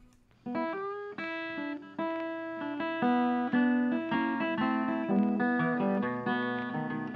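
Background music: acoustic guitar picking a melody of separate plucked notes, starting about half a second in after a short quiet gap.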